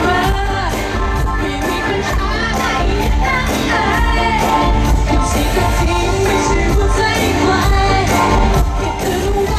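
Thai pop song performed live through a concert PA: singers' voices over loud backing music with a strong bass.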